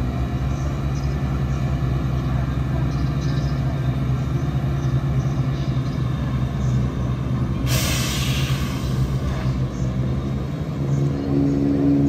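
Diesel train engine running at a platform with a steady low hum. About eight seconds in there is a sudden, short hiss of air, typical of air brakes. Near the end the engine note strengthens and rises.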